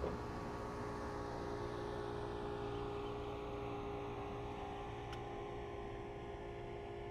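Steady engine hum of a boat passing at a distance, with one faint click about five seconds in.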